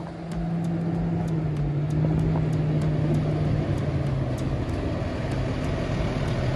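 Diesel engine of a Super C motorhome on an International truck chassis, running steadily as the coach rolls slowly in at low speed; its low hum drops a little in pitch about halfway through as it slows.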